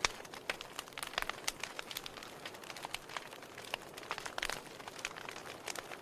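Wood fire crackling in a fireplace: irregular sharp snaps and pops over a soft steady hiss.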